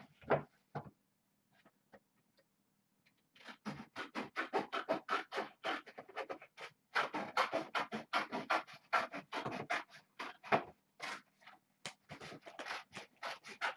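Rapid rough scratching and rubbing strokes, several a second, starting about three and a half seconds in and keeping on in dense runs.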